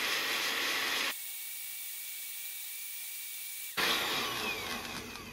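Countertop blender running on low, churning eggs, water, vinegar and oil into a thin batter. The motor noise drops abruptly to a much quieter hum with a faint steady whine about a second in, comes back loud a few seconds later, then fades near the end with a falling whine as the motor winds down.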